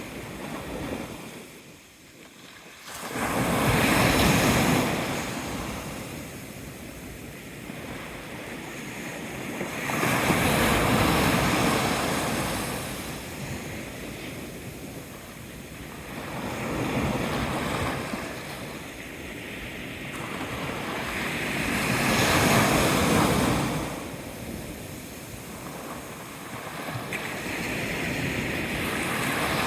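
Sea waves breaking and washing up the shore, a rushing noise that swells and fades in slow surges about every six seconds.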